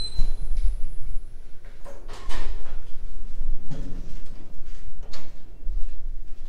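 Elevator's sliding doors opening, with a short high beep right at the start, then a few knocks and a low rumble as someone steps out and walks away with the camera.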